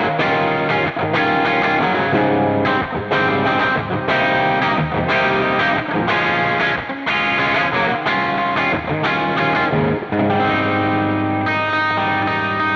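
Electric guitar played through the overdrive section of a NUX Cerberus multi-effects pedal, with cab simulation and reverb on: rhythmic chord strokes, then one long held chord ringing from about ten seconds in.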